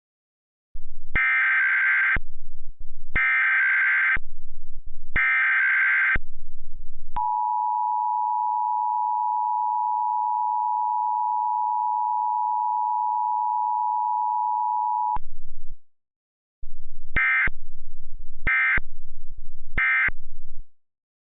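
Emergency Alert System test tones: three one-second bursts of screeching SAME digital header data, then the two-tone attention signal (853 and 960 Hz together) held for about eight seconds, then three short end-of-message data bursts.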